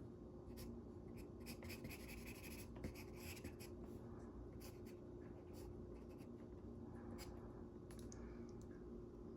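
Faint scratching of drawing strokes on paper during wolf sketching, short strokes coming in quick irregular runs, over a steady low hum.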